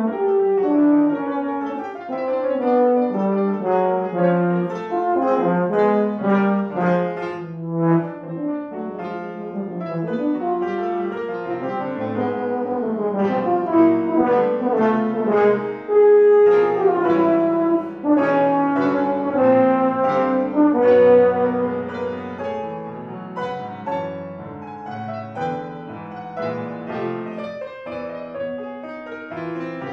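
Euphonium playing a busy line of quick notes with piano accompaniment, growing softer over the last several seconds.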